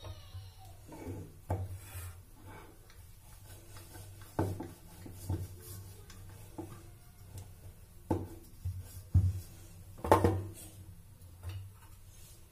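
Wooden rolling pin rolling out dough on a wooden board (chakla), making rubbing sounds and irregular wooden knocks. The two loudest knocks come about nine and ten seconds in.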